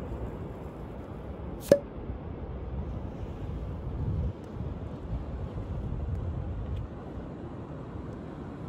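Wind rumbling on the microphone, a steady low buffeting noise, with one sharp click just under two seconds in.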